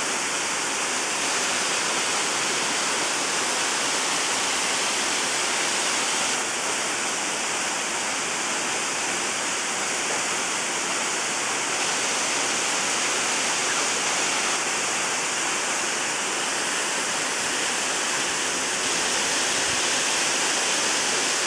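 Waterfall pouring into a pond: a steady, even rush of falling water.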